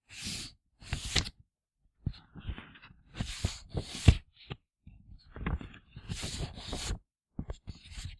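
A sheet of paper slid quickly in and out of an envelope, making a series of short paper swishes about a second apart. It is used as a homemade sci-fi door whoosh effect.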